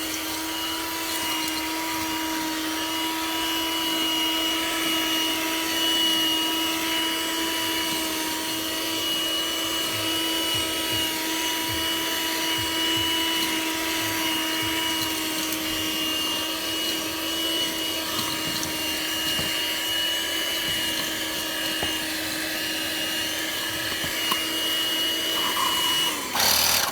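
Handheld car vacuum cleaner running steadily, a constant motor whine with airflow hiss, that stops abruptly near the end.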